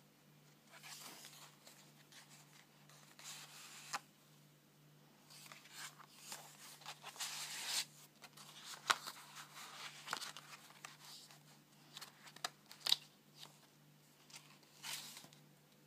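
Paper pages of a handmade altered-book journal being turned and handled: repeated rustling swishes, with a few sharp taps and clicks in between.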